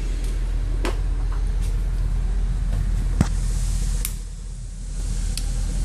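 Ford E350 van's engine idling as a steady low hum, with a few sharp clicks over it, the loudest about three seconds in.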